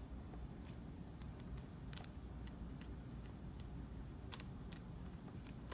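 Holographic glitter slime being kneaded and stretched by hand, giving faint, irregular little sticky clicks and pops, a few each second, over a low background hum.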